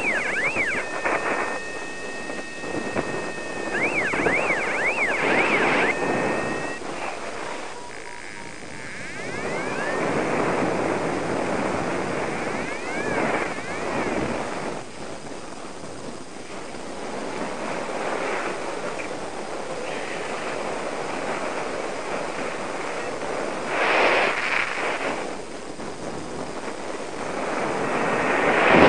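Airflow rushing over the microphone of a paraglider in flight, swelling in gusts, loudest near the end. In the first several seconds, and briefly again about halfway through, the flight instruments' electronic variometer tones warble up and down, with two steady beeps held for a few seconds.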